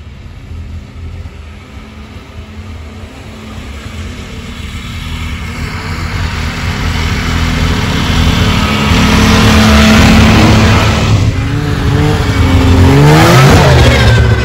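Polaris two-stroke snowmobile engine running as the sled approaches and passes close by. It grows steadily louder for about ten seconds, then its engine pitch dips and climbs again as it goes past near the end.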